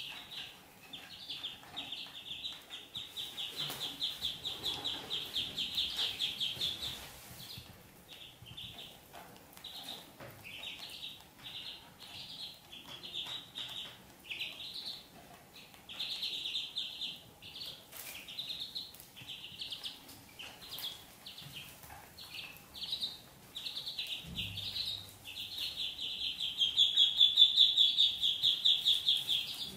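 Ducklings peeping: rapid runs of short, high-pitched peeps throughout, loudest and most continuous a few seconds in and again near the end.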